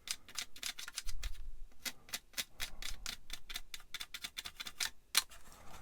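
Rapid, irregular light ticks and clicks from small hand work on a plastic model kit, several a second, with short pauses about a second in and again near the end.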